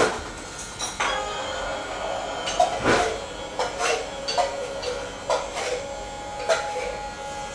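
Electric hair clippers running with a steady hum while cutting hair, with a few sharp clicks and knocks.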